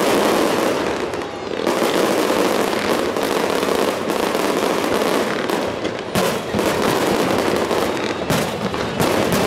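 Fireworks display: a dense, continuous crackling of many bursting shells, with a few sharper bangs in the last few seconds.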